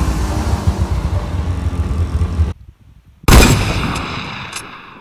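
A snowmobile engine running, which cuts off abruptly; about a second later a single loud gunshot goes off and its echo dies away over nearly two seconds.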